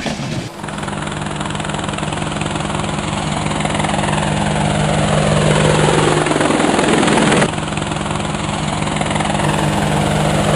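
Quadcopter drone sound effect: a steady propeller buzz and hum that grows slowly louder, with a falling whoosh sweeping down through it in the middle and cutting off sharply.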